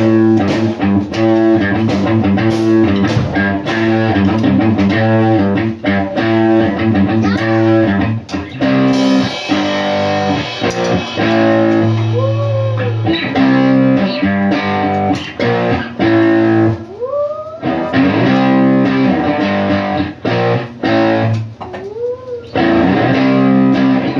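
Live rock band playing: electric guitar and bass over a drum kit beating a steady rhythm, with a few notes sliding upward in pitch.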